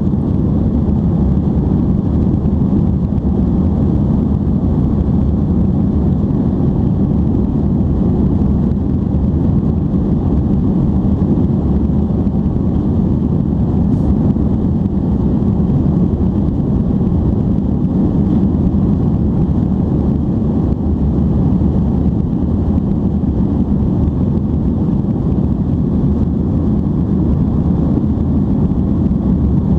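Steady cabin roar of an Airbus A310-325 airliner climbing after take-off: engine and airflow noise heard from a window seat over the wing, low and even, with no change in level.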